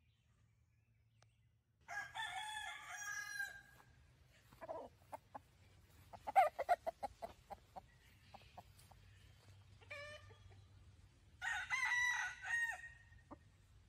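Gamecock rooster crowing twice, once about two seconds in and again near the end, with a run of short clucks in between.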